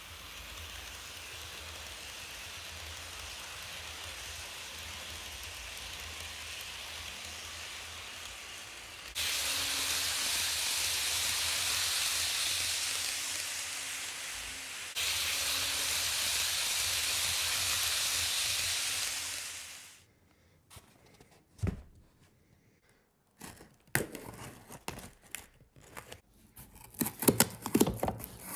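For about twenty seconds, a steady hiss that jumps louder at abrupt cuts about nine and fifteen seconds in. After a brief near-quiet pause, a pocketknife blade scrapes and slits packing tape on a cardboard box, with sharp clicks and scratches.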